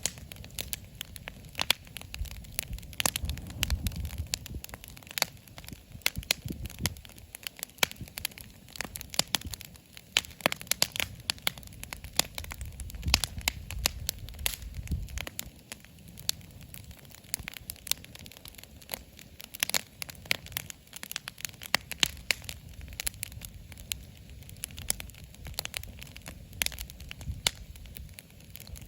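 Wood campfire crackling, with many sharp, irregular pops and snaps, over a low rumble that swells and fades a couple of times.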